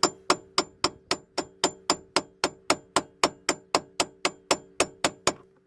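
Hammer tapping steadily on the head of a snapped-off security bolt, about four light strikes a second, each with a short metallic ring, to work the bolt out of a steering lock. The tapping stops near the end.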